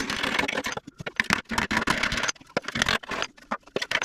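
Irregular bursts of scraping and rustling from hands handling and moving materials, with short pauses between the bursts.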